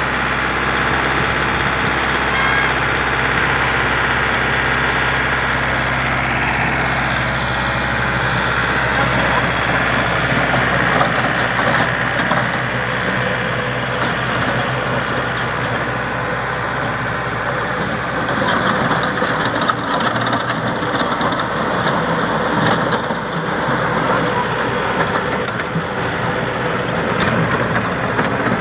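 Yanmar tractor's diesel engine running steadily. About eleven seconds in the sound turns rougher and noisier as the rear rotary tiller churns the soil, with many short crackling strikes of clods from about eighteen seconds on.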